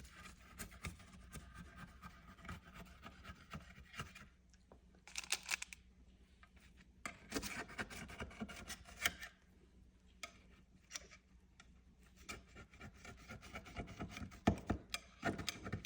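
Faint rubbing and scraping with scattered light clicks and knocks: kitchen utensils being handled and worked against a bowl or pan.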